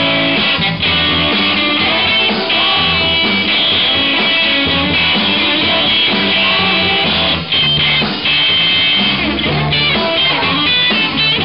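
Live rock band playing, with electric guitars to the fore over bass and drums.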